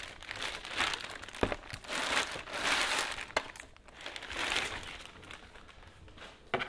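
Plastic bag crinkling in three bursts as a boxed laptop docking station is pulled out of it, with a few light knocks in between.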